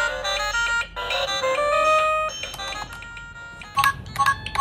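Kids' learning laptop toy playing a short electronic jingle of bright beeping tones through its small speaker. Near the end come several quick clicks and beeps as its keys are pressed.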